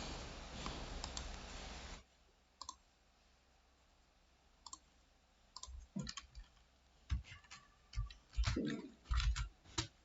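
Computer keyboard keystrokes: a few isolated key clicks, then irregular typing that picks up and grows denser from about six seconds in. A steady hiss fills the first two seconds.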